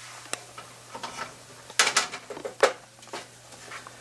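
Spatula scraping and knocking against a nonstick skillet while stirring flour in hot oil to cook it off for gravy, with a few sharp knocks, the loudest pair about two seconds in.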